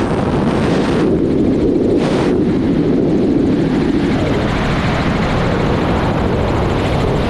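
Helicopter rotor and engine noise heard on board in flight, loud and steady.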